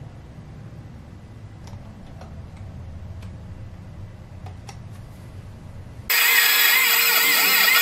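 Low hum with a few faint clicks, then about six seconds in an abrupt switch to a loud CNC milling machine: an end mill cutting an aluminium cylinder head blank, with several steady high tones and some wavering ones from the spindle and the cut.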